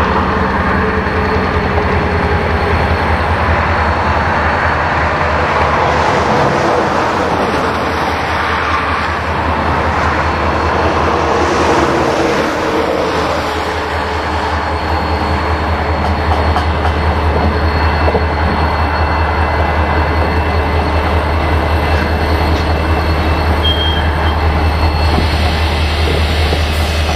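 Norfolk Southern freight train passing: a diesel locomotive followed by an autorack and boxcars rolling by. It makes a continuous, loud mix of engine noise and steel wheels on the rails.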